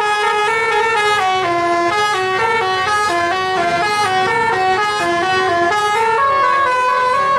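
A bus's multi-tone telolet air horn playing a fast melody, the notes stepping up and down a few times a second without a pause.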